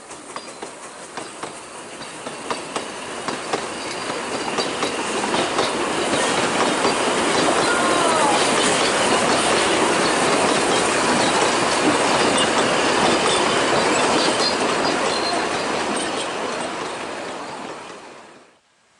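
Narrow-gauge steam train running past: the wheels and carriages clatter on the rails, growing louder, peaking in the middle with a brief wheel squeal, then fading away.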